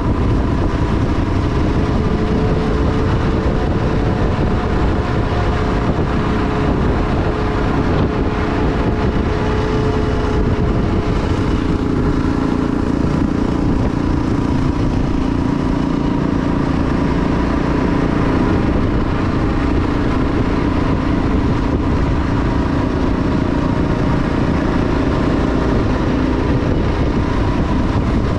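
Kawasaki KLR 650 single-cylinder engine running steadily at road cruising speed, with wind noise on the microphone; the engine's note changes about eleven seconds in.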